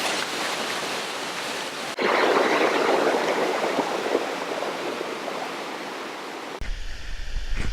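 Steady rush of a waterfall and its river. The rush steps up louder at a cut about two seconds in. Near the end it gives way to a low rumble.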